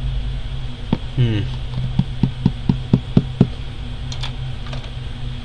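Hands tapping and handling a cardboard box on a tabletop: one click, then a quick run of about seven light knocks at roughly four a second, then a few fainter ticks, over a steady low hum.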